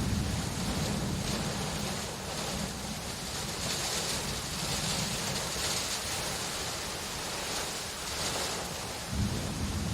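Steady rain falling as an even hiss. A low rumble fades over the first few seconds, and another thunder rumble rises about nine seconds in.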